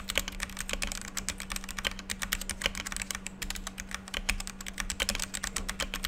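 Dareu EK-861 60% mechanical keyboard with Kailh Red linear switches being typed on quickly: a fast, continuous stream of keystroke clicks, over a faint steady low hum.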